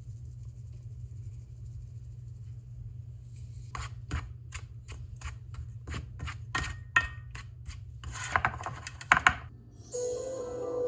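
A run of sharp clicks and taps, roughly two a second, as seasoning is added in the kitchen, over a steady low hum. Music comes in near the end.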